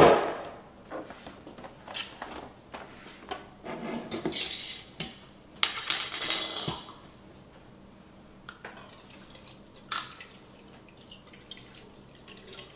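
Glass jars and their metal screw lids handled on a countertop: a jar set down with a sharp knock at the start, then short bursts of scraping and clinking as the lids are twisted off and laid down, with a few scattered clicks.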